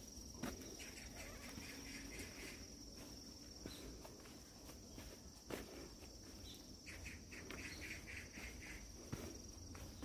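Insects trilling in a steady high-pitched tone, with a quick series of chirps about a second in and again near the end, and a few scattered footsteps on the dirt path.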